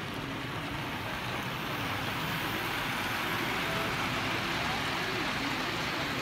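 Steady din of a busy exhibition hall: many visitors talking at once, with model trains running on the layout.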